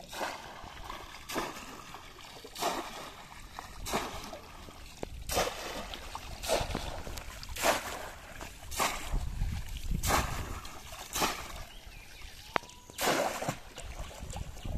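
Bamboo polo fish trap plunged into shallow river water over and over, each stroke a short splash, about a dozen in all at roughly one a second.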